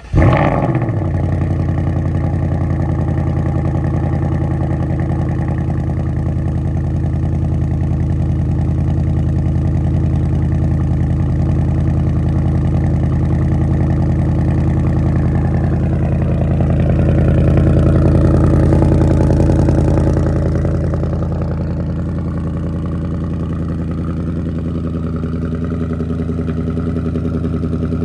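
A 2024 S650 Mustang GT's 5.0 L Coyote V8 with the optional active valve performance exhaust starting up with a sudden loud flare, then settling into a steady idle. The idle swells a little past the middle and then drops to a slightly lower, even level.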